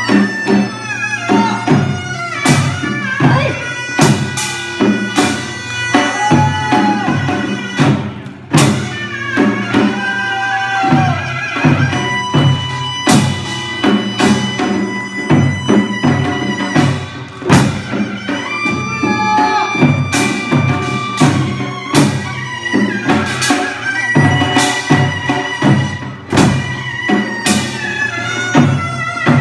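Korean traditional music: a held, bending melody line over frequent drum strikes.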